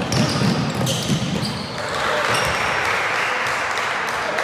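A basketball being dribbled on a hardwood gym floor during a game, with a wash of game noise in the gym rising about two seconds in.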